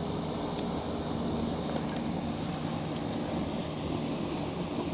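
Steady low background hum with a few faint, light clicks as the stripped wire ends are bent and handled.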